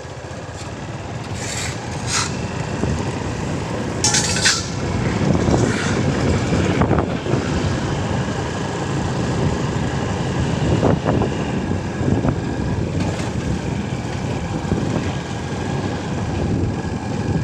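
Motor vehicle underway: a steady engine and road rumble that builds over the first few seconds, with a few short hissing bursts, the strongest about four seconds in.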